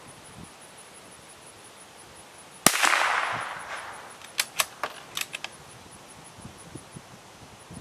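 A single shot from a CZ 452 American bolt-action .22 LR rifle, the report trailing off over about a second. About two seconds later comes a quick run of sharp clicks as the bolt is worked to eject the case and chamber the next round.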